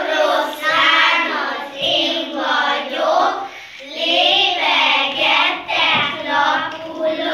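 A group of young kindergarten children singing a march song together in unison, in phrases of about two seconds.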